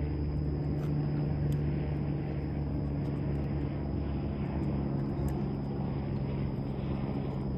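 Steady low hum of an idling engine: an unchanging drone with no rise or fall in pitch.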